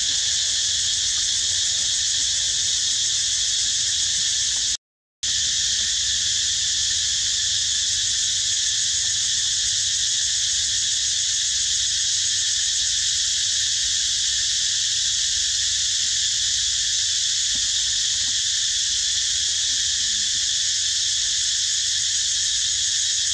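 Steady, unbroken chorus of insects buzzing at a high pitch. It cuts out briefly about five seconds in.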